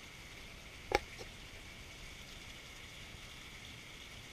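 Quiet ambience over water: a faint steady hiss with a thin high steady tone, broken by one sharp knock about a second in and a fainter one just after.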